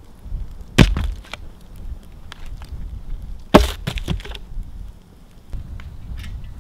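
Firewood sticks dropped onto a stone fire pit: two sharp wooden knocks about three seconds apart, each followed by a brief clatter of wood.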